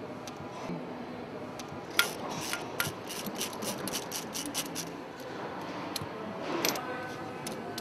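Ratchet wrench clicking as it is worked on a cylinder-head bolt: a run of quick, even clicks, about five a second, starting about two seconds in and lasting about three seconds, with gloved hands rubbing on metal.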